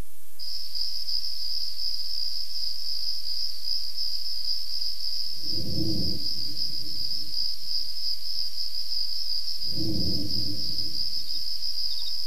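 A steady, high insect drone, a single shrill tone that keeps going without a break. Two low swells of sound rise and fade under it, about six and ten seconds in.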